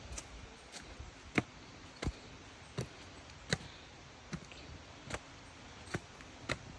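Footsteps on a walking trail at a steady pace, about one and a half steps a second, each a short thud with a click.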